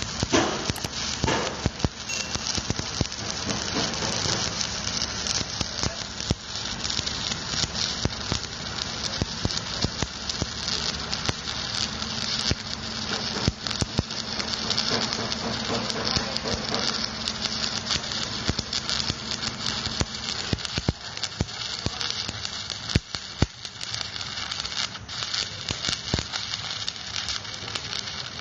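Electric stick-welding arc crackling and sizzling steadily, with scattered sharp pops, as a bead is run on a steel excavator bucket adapter. The arc breaks off at the end.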